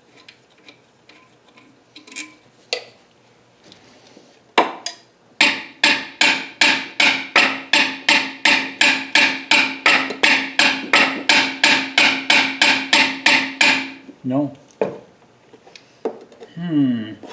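Hammer blows on metal: one strike, then a steady run of about three or four blows a second for some eight seconds, each one ringing. They are knocking at a stuck engine mount part that will not come free after its bolts are out.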